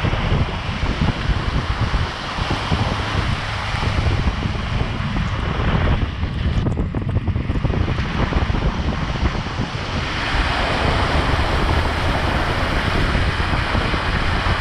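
Pickup truck driving fast through a flooded road: its tyres throw up a steady rush of splashing spray, under heavy wind buffeting on the microphone. The spray hiss grows louder about two-thirds of the way through.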